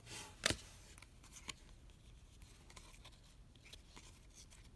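Topps baseball cards being flipped through by hand: faint sliding and rubbing of card stock, with a sharp snap about half a second in and a lighter click about a second later.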